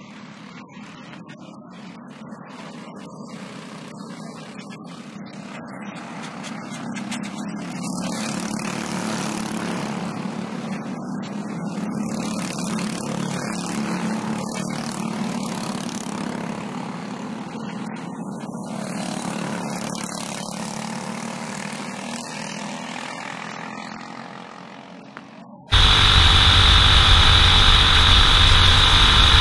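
Briggs & Stratton 206 four-stroke single-cylinder kart engines racing past, growing louder as the karts come near and easing off again. About 26 seconds in it cuts suddenly to one kart's engine heard close up at speed, much louder, with a steady high whine.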